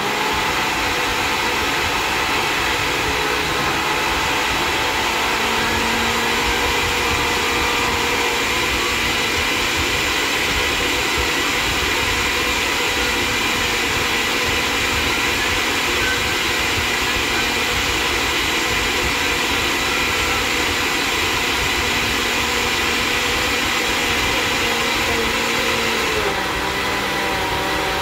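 Countertop blender running steadily, blending a frozen-strawberry and ice-cream milkshake, with a steady motor whine. Its pitch and level shift slightly about two seconds before the end.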